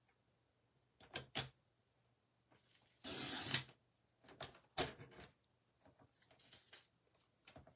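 Sliding-blade paper trimmer cutting designer paper: two clicks about a second in, then a short scraping slide of the blade along its rail about three seconds in, the loudest sound, followed by scattered taps and paper rustling as the paper is handled.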